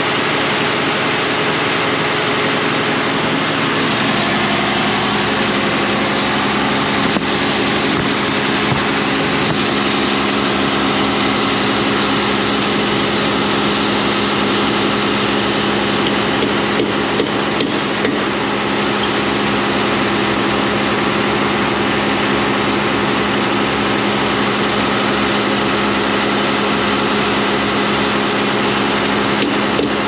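John Deere 7200R tractor's diesel engine idling steadily, running with its exhaust pipe joint freshly re-gasketed.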